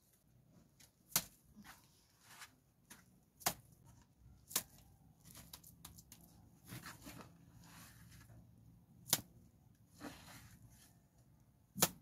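Clay bricks knocking against each other as they are laid into wet mud: five sharp clacks a few seconds apart, the last the loudest, with softer scraping and patting of mud between.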